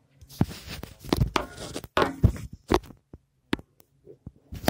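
Close rustling and crackling from a phone being handled, fingers and fabric rubbing over its microphone in irregular bursts, with a few sharp clicks in a pause near the end.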